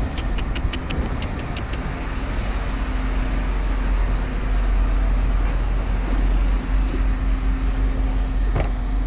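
A vehicle engine idling with a steady low rumble and hum, and a quick run of light ticks in the first couple of seconds.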